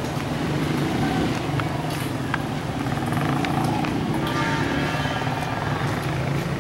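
Steady low engine hum of a motor vehicle running close by, with a few faint clicks.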